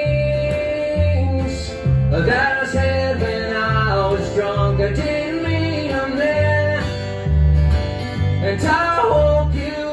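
Live acoustic string band playing with a vocal: acoustic guitar, fiddle and upright bass, the bass thumping out alternating low notes in a steady two-beat pattern under the singing.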